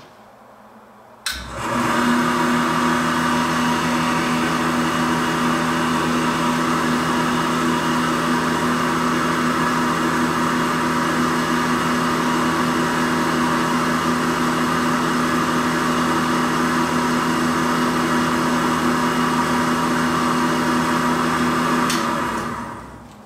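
Snap-On VR-300 valve grinder switched on with a click about a second in, running steadily with a few constant tones, then switched off near the end and winding down. It runs without squealing on its freshly rebuilt spindle bearings.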